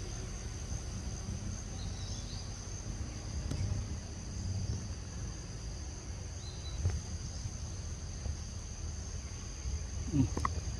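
Steady high-pitched insect chorus, with a low rumble underneath and a short voice-like sound just before the end.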